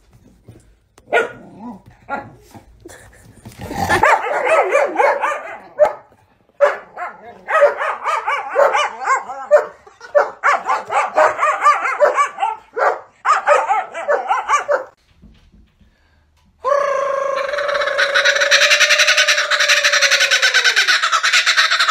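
A dog barking and yapping in rapid, repeated bursts, a protective outburst at a man touching its owner. Near the end, after a short pause, a different steady, loud high sound takes over.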